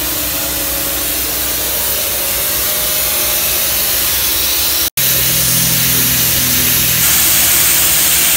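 Kärcher pressure washer blasting a jet of water onto teak wood to clean it: a loud, steady hiss that drops out for an instant about five seconds in.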